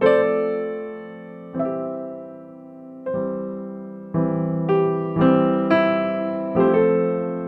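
Slow solo piano music: notes and chords struck and left to ring out, coming closer together in the second half.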